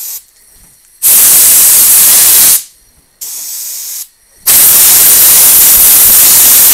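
Aerosol can of brake cleaner sprayed in bursts onto a steering box's seal housing: two long, loud hisses of about one and a half and two seconds, with a shorter, quieter hiss between them.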